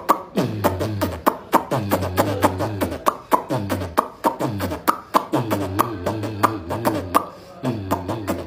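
Rhythmic beatbox-style vocal sounds: a voice in repeated falling phrases and low hums, about one a second, over a steady clicking beat of about four clicks a second.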